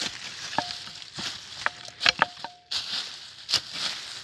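A small pick chopping into forest soil and dry leaf litter: a run of sharp strikes with rustling leaves between them. A metal detector's steady tone sounds twice in short stretches, the signal of a buried metal target.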